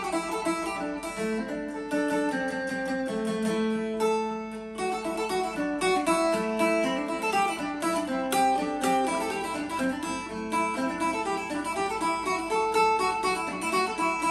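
Thai phin, a bodhi-leaf-shaped lute carved from a single piece of wood, played solo: a quick picked melody of many notes, some ringing on under the next.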